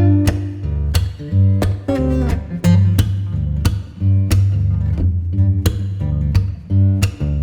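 Background music: plucked acoustic guitar with a bass line and a steady beat.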